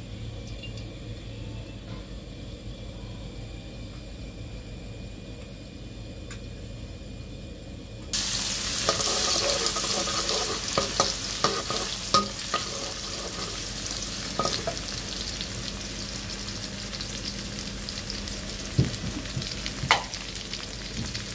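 Chopped garlic frying in hot oil in a wok: the sizzle starts suddenly about eight seconds in and keeps going. A metal spatula clinks and scrapes against the wok as the garlic is stirred, with a few sharp taps near the end.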